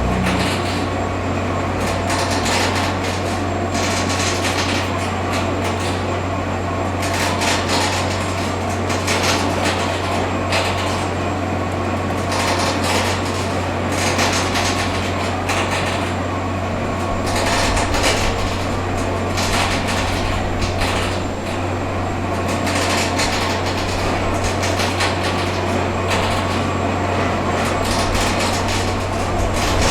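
Subway construction site noise: heavy machinery runs with a constant low drone, with frequent irregular knocks and bangs from the work over it.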